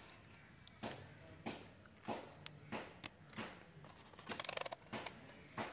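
Wires and plastic connectors of a scooter's ignition-coil wiring being handled by hand: scattered soft clicks and rustles, with a short rattling burst about four and a half seconds in.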